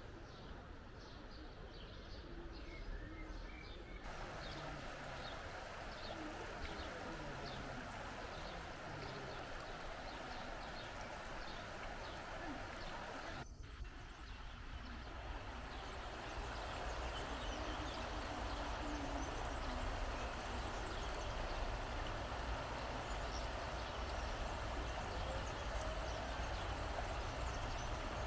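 Outdoor ambience: a steady rushing background noise with small birds chirping. The background changes abruptly about 4 and 14 seconds in and grows louder in the second half.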